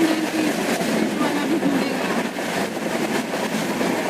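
Train running along the track: a steady noise of wheels on rails.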